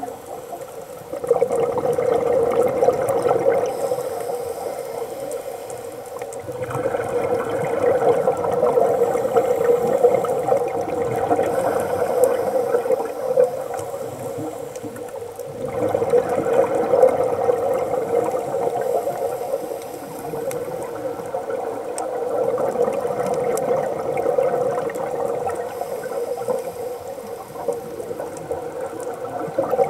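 Scuba regulator exhaust bubbles heard underwater: long gurgling rushes of exhaled breath, several seconds each, starting abruptly about a second in, about seven seconds in and about sixteen seconds in, with quieter stretches between.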